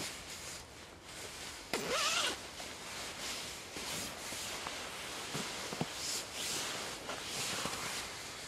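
Nylon hammock and sleeping-bag fabric rustling and scraping as someone shifts about in a hammock, with a louder zip-like stroke about two seconds in and smaller strokes after it.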